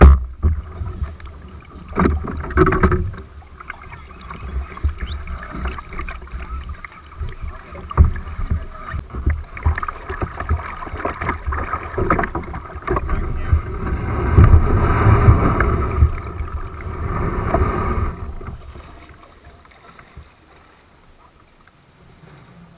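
Water splashing and sloshing around a canoe, with sharp knocks against the hull and low wind buffeting on the microphone. It grows busiest past the middle and dies down about three-quarters of the way through.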